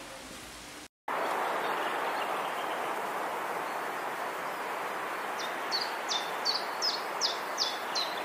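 A steady rushing noise starts abruptly after a brief cut to silence, and from about five seconds in a bird calls in short chirps, each falling in pitch, about three a second.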